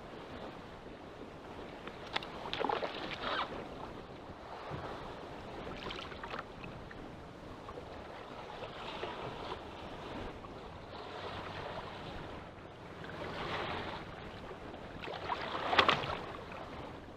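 Rough sea: waves surging and washing every few seconds over steady wind noise on the microphone, the loudest surge near the end.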